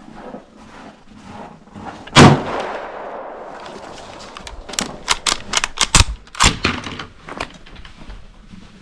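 A single rifle shot from a Yugoslavian M95M straight-pull Mannlicher in 8mm Mauser about two seconds in, with a trailing echo. About three seconds later comes a quick run of sharp metallic clicks and clacks as the straight-pull bolt is worked.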